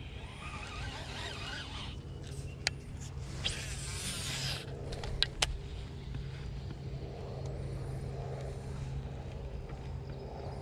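Baitcasting rod and reel being handled: a rush about four seconds in and a few sharp clicks from the reel, over a steady low hum.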